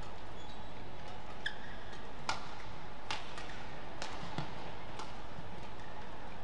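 Badminton rally: rackets striking the shuttlecock with sharp cracks about once a second, over the steady hum of the arena.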